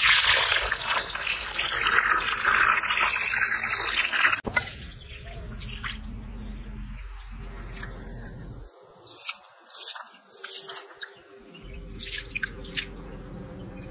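Water poured from above into a wide bowl of raw rice, a loud steady splashing that stops suddenly after about four seconds. Then a hand swishes and squeezes the rice in the water to wash it, with soft irregular splashes and drips.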